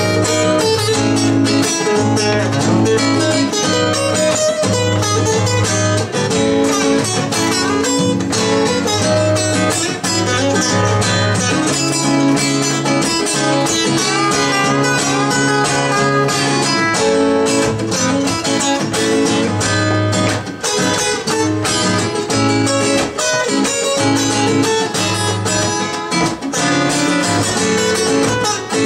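Two acoustic guitars playing a song live, strummed chords with picked notes, in an instrumental passage.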